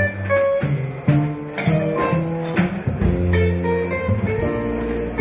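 Background music with guitar playing a run of changing notes over a low bass line.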